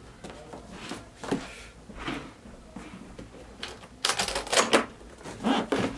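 Cardboard PS4 box being handled while someone tries to open it: scattered scrapes, rubs and taps, with a louder run of cardboard rubbing and knocking about four seconds in as the box is tipped up on end.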